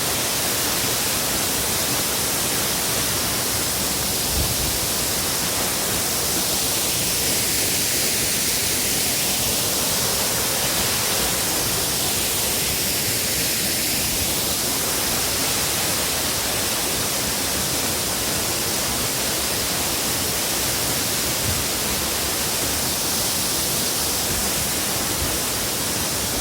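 Waterfall: water falling and splashing, a steady, unbroken rush.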